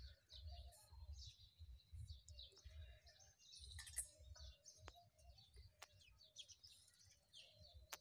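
Sparrows chirping, faint and almost nonstop, over a low rumble, with a few sharp clicks in the second half.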